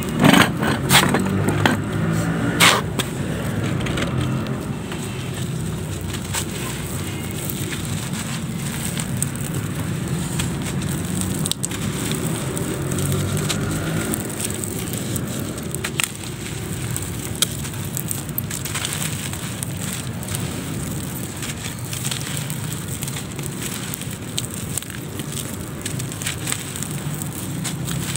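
A dried chunk of gritty handmade mud, grey concrete mixed with sand, crumbling in the hand: several sharp cracks as it breaks in the first three seconds, then steady crackling and gritty rustling as crumbs and powder trickle onto the pile.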